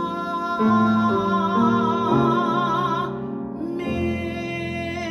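A woman singing long held notes with a wide vibrato, accompanying herself on the piano as the chords change beneath her. Her voice breaks off about three seconds in, then comes back on another long note.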